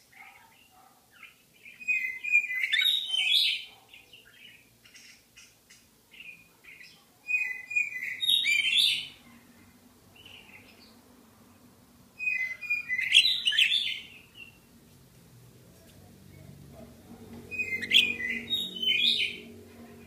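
Budgerigar chattering and warbling: four bouts of quick chirpy notes, each a second or two long, a few seconds apart.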